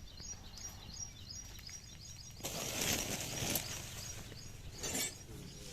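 A small bird chirping rapidly, about four short falling chirps a second, over a steady low hum. About two and a half seconds in, a rush of noise covers it for a second or so, with another short burst near the end.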